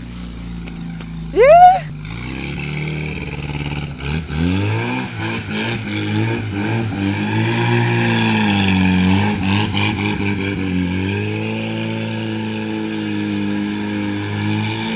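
Off-road cage buggy's engine revving up and down as the buggy spins circles, its pitch climbing and dipping again and again. A brief, loud, sharply rising squeal stands out about a second and a half in.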